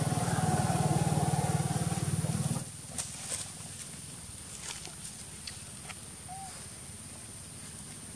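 An engine running steadily with a low hum, which cuts off sharply about two and a half seconds in. After it comes quieter outdoor ambience with a steady high whine, a few soft clicks and one short squeak.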